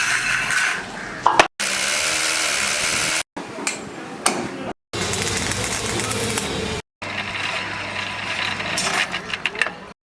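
A series of short work-sound clips, each cut off abruptly: steady power-tool running in several of them, alternating with stretches of clicking and knocking from hand work.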